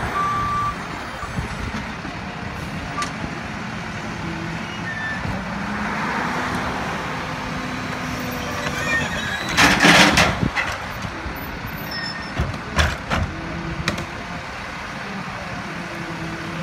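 Front-loader garbage truck lifting a dumpster over its cab and dumping it into the hopper, the engine running up to drive the lift hydraulics. Its reversing beeps stop just after the start; about ten seconds in the load crashes into the hopper, followed by several sharp bangs as the dumpster is shaken out.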